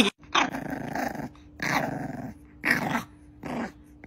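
Bulldog puppy growling in four short bursts, each under a second long, over a faint steady hum.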